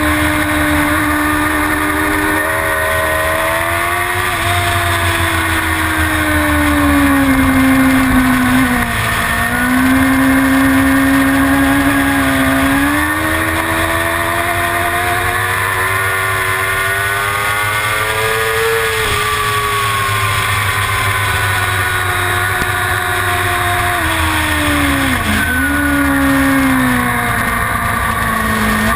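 Suzuki GSX-R750's inline-four engine at racing revs, its pitch climbing and falling as it drives out of and into corners. Twice the revs drop sharply for a moment, over a steady low rush of noise.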